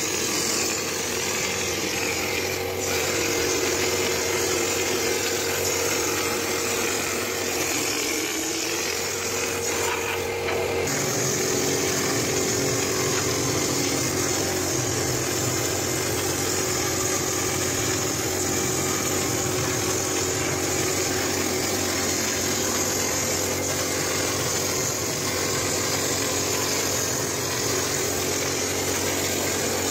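Air compressor running steadily with a hiss of air, driving a hopper spray gun for textured plaster; its hum changes about eleven seconds in.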